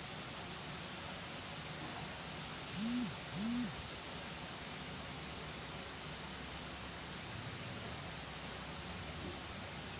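Steady hiss of background noise, with two short low pitched sounds about three seconds in, each rising and then falling.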